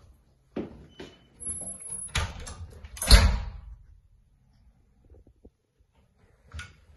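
Wooden cupboard door being opened and handled: a few clicks and knocks, the loudest a single bang about three seconds in, with more knocks near the end.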